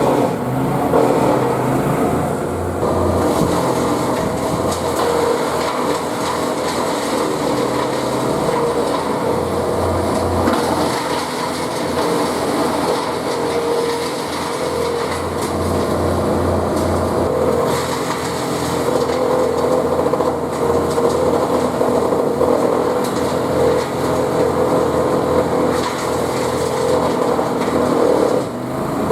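Wood chipper machine running continuously, a steady mechanical hum with no breaks.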